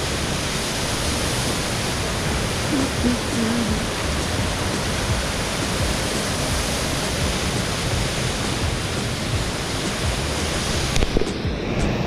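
Waterfall: a steady rush of falling water. Its hiss drops off suddenly near the end.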